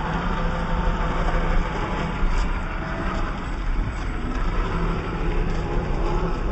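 Traxxas TRX-4 RC crawler running: a steady whine from its small electric motor and geared drivetrain, with scattered light clicks.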